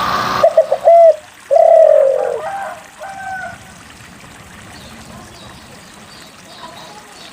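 Spotted dove (derkuku) cooing: three short coos, then one long coo falling in pitch, then a few fainter notes, over a faint steady hiss. A loud rushing noise cuts off abruptly about half a second in.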